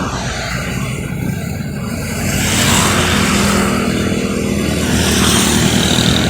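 Road traffic running steadily, with a vehicle passing close and louder about two seconds in.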